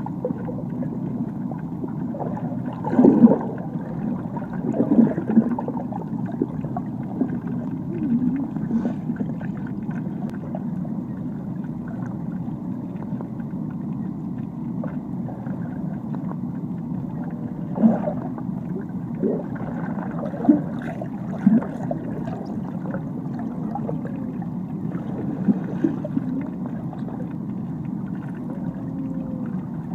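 Muffled underwater noise picked up by a submerged camera: a steady low rumble broken by a few louder gurgling bubble bursts, the loudest about three seconds in.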